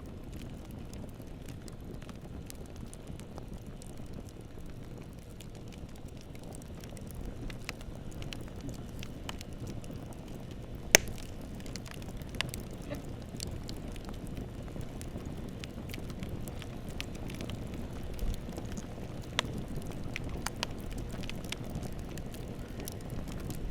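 Bonfire burning with a steady low rumble and scattered crackles and pops of burning wood, one sharp crack standing out about eleven seconds in.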